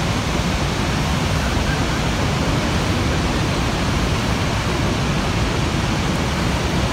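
Horseshoe Falls at Niagara Falls: a loud, steady rush of water pouring over the crest, with no breaks or changes.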